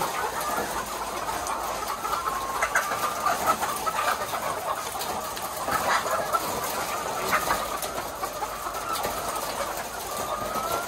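A large flock of caged white laying hens clucking and calling all at once in a steady, dense chorus, with a few louder single calls standing out now and then.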